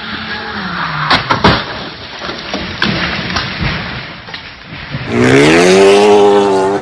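A car approaching on a wet road crashes about a second in: several loud impact bangs, then a few smaller knocks as debris lands. Near the end a different car's engine revs hard and loud as it accelerates.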